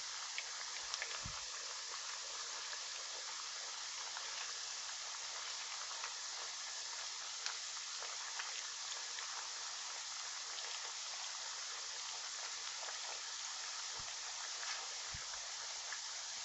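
Pork pieces browning in hot vegetable oil in a pot, sizzling steadily with a few faint crackles and pops.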